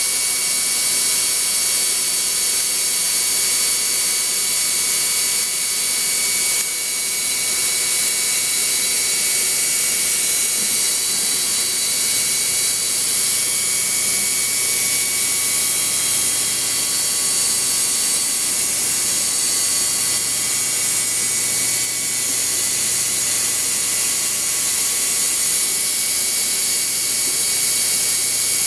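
Steady machine-shop machinery noise: a continuous whine with several steady high tones over a hiss, with no breaks.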